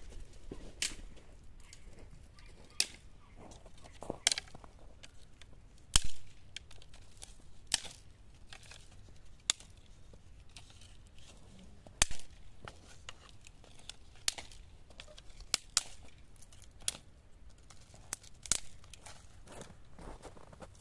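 Dry twigs and branches snapped by hand into kindling: irregular sharp cracks, roughly one a second, with two louder snaps about six and twelve seconds in.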